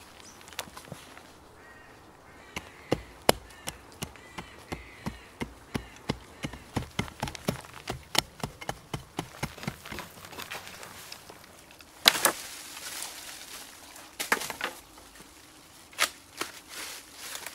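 Small shovel chopping into firm soil, short sharp strikes repeated about three times a second, then a louder scraping rush and a few scattered knocks near the end.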